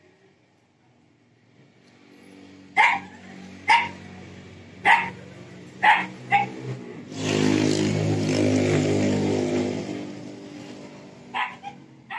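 A dog barks five sharp times about a second apart, then twice more near the end. In between, a passing vehicle's engine is heard for about three seconds.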